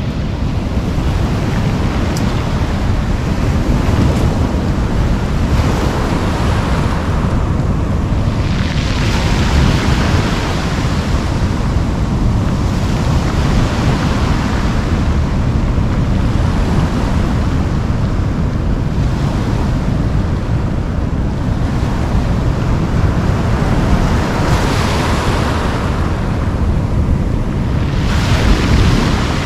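Ocean surf breaking and washing up a pebble beach, swelling and fading every few seconds, over a steady heavy rumble of wind on the microphone.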